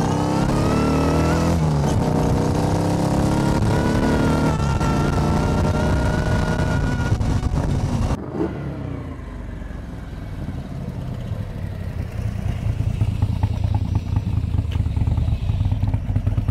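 Morgan 3 Wheeler's V-twin engine pulling as the car accelerates, its pitch climbing through the gears with short drops at the shifts, with wind rushing past the open cockpit. About eight seconds in this gives way to a lower, uneven engine beat as the car rolls slowly.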